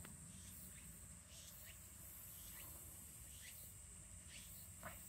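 Faint, steady, high-pitched insect drone, with short falling chirps about once a second; the loudest chirp comes near the end.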